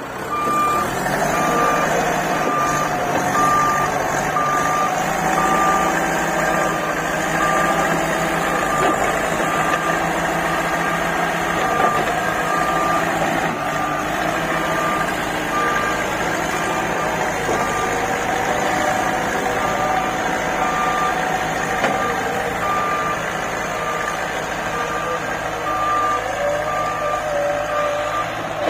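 Backhoe loader's diesel engine working under load, its pitch wavering as the machine pushes soil, with a beeping alarm sounding at a steady, even rate over it.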